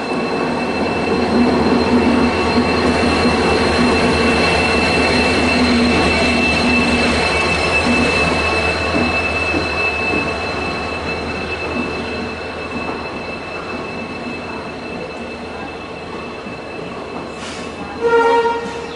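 Passenger train running, with steady rumble and a continuous high-pitched squeal of wheels on the track. It fades slightly in the second half, and near the end a loud pitched sound sounds briefly, for about a second.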